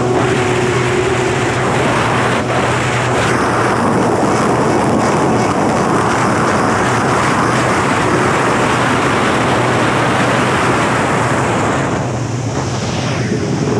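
Kawasaki 650SX stand-up jet ski with a swapped-in 1100cc two-stroke engine running flat out on a top-speed run, a steady engine drone under a dense rush of noise. The sound eases a little near the end.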